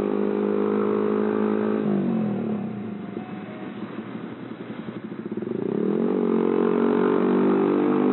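Motorcycle engine running under way: steady at first, then about two seconds in the revs drop away and the sound goes lower and rougher for a few seconds, before the engine picks up again from about six seconds with rising pitch and settles steady.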